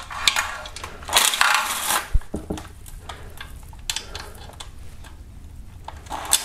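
A cordless power tool with a 10 mm socket whirring in one short burst about a second in, backing out an oil pan bolt, followed by a sharp click and a few light metallic clinks of tool and bolt.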